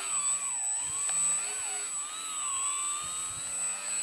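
Electric motor and propeller of a Nutball RC foam flying-wing plane whining in flight, the pitch rising and falling as the throttle is worked, over a steady thin high tone.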